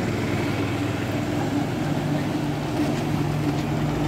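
A steady low mechanical drone over the steady wash of water pouring into a pond. The drone grows a little stronger about halfway through.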